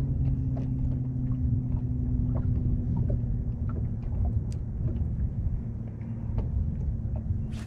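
Electric bow-mounted trolling motor humming steadily, its pitch stepping slightly lower right at the start, over a low rumble of wind and waves, with scattered small ticks throughout.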